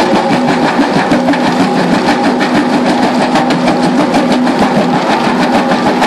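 JCB backhoe loader's diesel engine running steadily with a crusher bucket attachment working, giving a fast, even clatter over the engine note.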